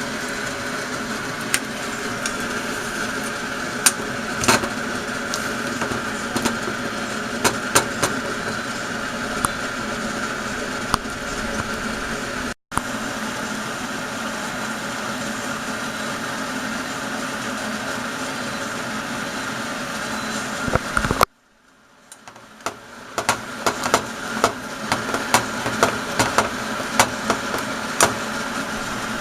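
Steady machine hum with scattered light clicks and knocks. The sound cuts out for an instant about 13 seconds in, and again about 21 seconds in, fading back up over the next few seconds.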